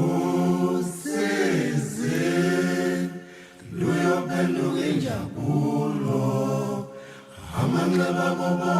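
Voices chanting unaccompanied in long held notes that slide in pitch, in several phrases with short breaks between them.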